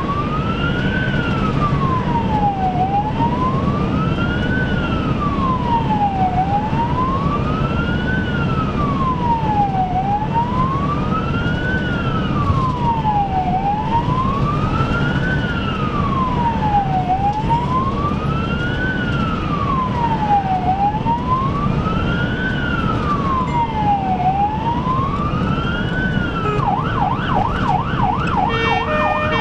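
Ambulance siren on a slow wail, rising and falling about once every three and a half seconds, heard from inside the cab over engine and road noise at expressway speed. About 26 seconds in it switches to a fast yelp, then to a stepped alternating tone.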